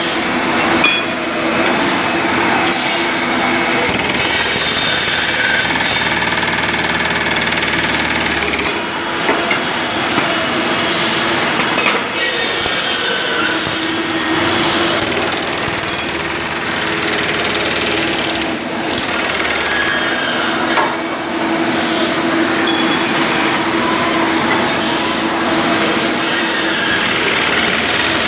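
Loud, continuous din of running machinery in an auto-parts factory: a dense noise with several steady hums and whines layered through it.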